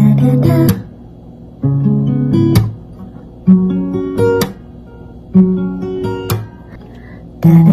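Background music: an acoustic guitar strummed in short phrases about a second long, each cut off sharply and followed by a brief pause, repeating roughly every two seconds.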